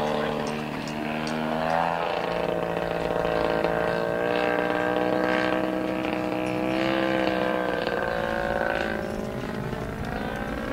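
Model aircraft engine of a scale RC de Havilland Tiger Moth biplane running in flight, its pitch wavering up and down as the plane passes and climbs.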